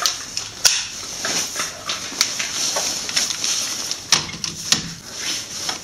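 Scattered metal clicks and knocks as an impact wrench and a combination wrench are set on the lower strut-to-knuckle bolt of a front suspension.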